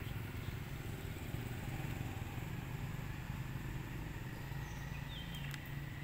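A low, steady engine hum, like a motor vehicle running.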